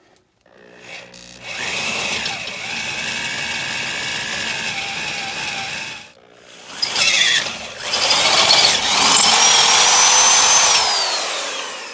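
Electric drill boring through steel in two long runs, its motor whining under load. The second run is higher and louder and winds down near the end.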